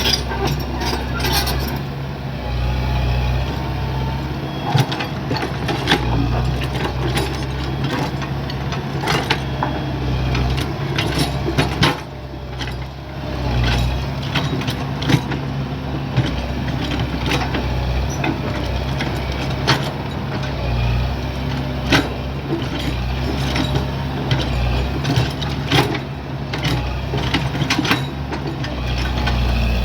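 Hydraulic excavator's diesel engine running steadily at work, with many short sharp clanks and knocks scattered throughout and a brief dip in engine level about twelve seconds in.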